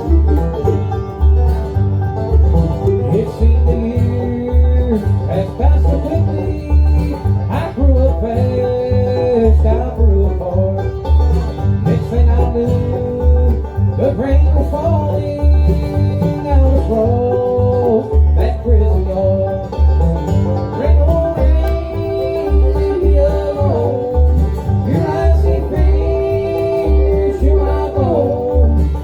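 Bluegrass band of banjo, mandolin, guitar and bass playing, with picked melody lines over a steady, even bass beat.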